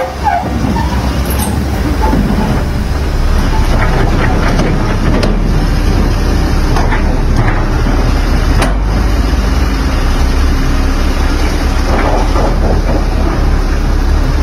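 SANY SY215C crawler excavator's diesel engine running steadily under hydraulic load as the arm and bucket are moved, with a few sharp knocks.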